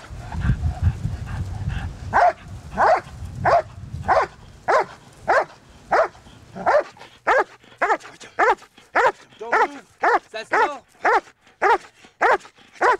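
Police dog barking repeatedly while guarding a suspect, about two barks a second, coming quicker near the end. A low rumble runs under the first few seconds.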